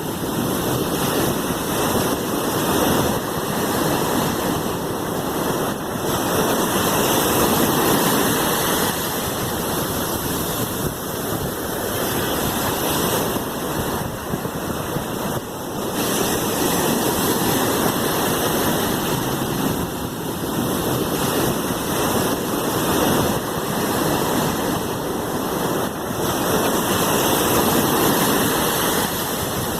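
Sea waves washing on the shore as a continuous rushing surf that swells and eases every several seconds.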